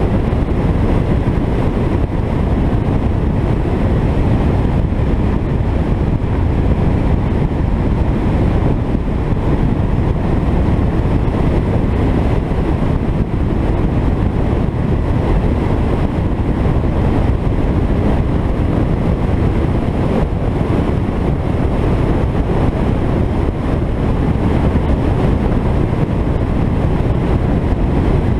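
An Alfa Romeo 33 driving along at a steady speed: a continuous low rumble of road, wind and driving noise, with no distinct engine note or changes.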